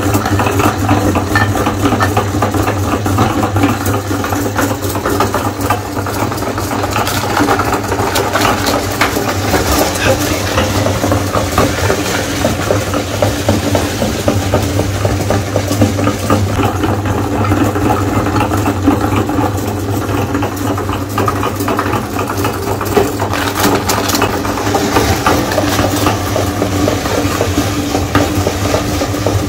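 Electric meat grinder running with a steady motor hum, its auger crunching Oreo cookies through the grinder plate with a dense crackle. It comes on suddenly at the start.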